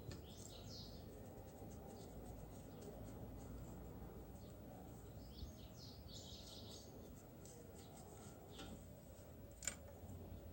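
Hair clipper blade being handled and rubbed: faint scratchy strokes in two short spells, about a second in and around six seconds, then a couple of sharp light clicks near the end.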